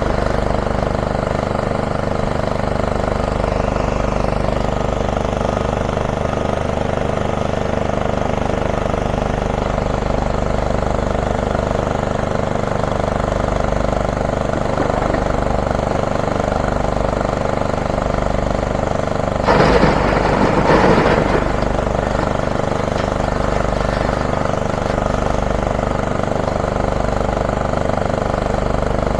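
Diesel excavator engine running steadily. About two-thirds of the way in comes a loud, rattling crash lasting about two seconds, in two surges, as a bucketload of hardcore rubble is dumped into a truck bed.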